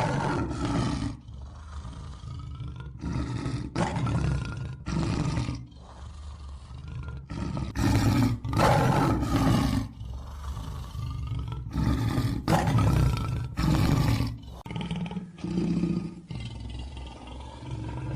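A large wild animal roaring in a long series of repeated calls, about a dozen of them, loudest in the middle of the run.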